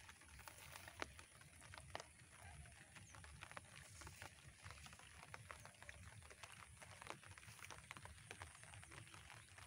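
Near silence: faint outdoor ambience with a low rumble and scattered soft clicks at irregular intervals.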